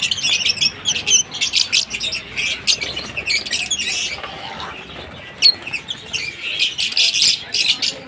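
A cage crowded with masked and Fischer's lovebirds chattering: many high, sharp chirps and squawks overlapping in a constant racket. The chatter thins briefly about halfway through, then picks up again.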